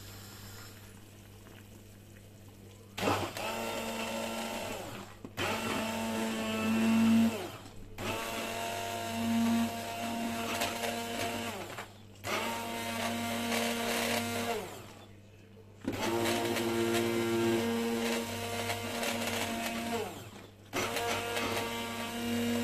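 Electric hand blender puréeing boiled vegetables for carrot soup in a pot. It starts about three seconds in and runs in about six bursts of a few seconds each, with brief pauses between them. The motor's whine dips in pitch at the start of each run as the blade bites into the vegetables.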